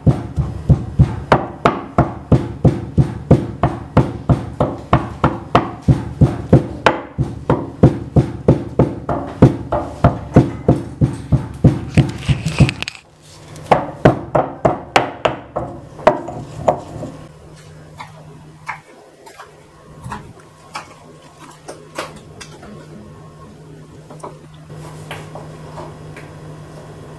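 Heavy stone pestle pounding peppercorns and cumin in a stone mortar, about three even strokes a second. About 13 seconds in the pounding stops suddenly, and a knife taps now and then as it cuts on a wooden board, over a low steady hum.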